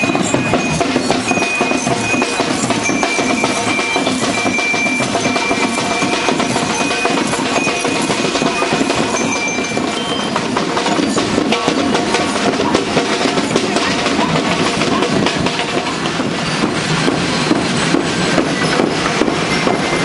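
School marching band music: a bell-lyre (glockenspiel) melody over a steady drum beat. The bell melody drops out about halfway through and the drumming carries on.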